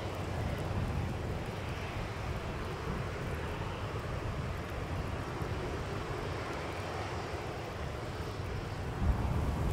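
Distant jet engines of a Boeing 737-800 (CFM56-7B turbofans) giving a steady low rumble as the airliner rolls out along the runway after landing. A brief low bump near the end.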